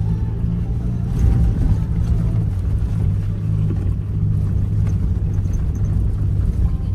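Ford F-150 Raptor heard from inside the cab: engine and tyres make a steady low drone while the truck cruises evenly at low speed, about 2,000 rpm.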